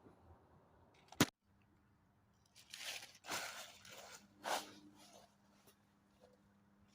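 Rustling and crunching of a bug net being unpacked and handled, after a single sharp click about a second in.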